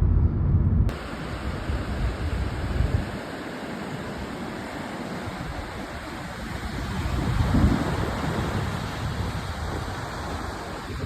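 A low car road rumble for about the first second, cut off abruptly, then Pacific Ocean surf washing on a beach with wind buffeting the microphone.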